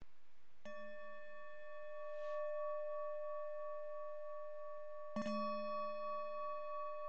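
Singing bowl struck twice, about four and a half seconds apart, each strike ringing on in a long, steady tone of several layered pitches that carries through to the next strike.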